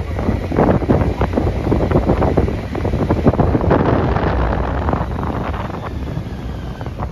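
Wind buffeting the microphone while riding a Kawasaki Versys motorcycle, with the engine running as a low rumble underneath; the rush eases off somewhat near the end.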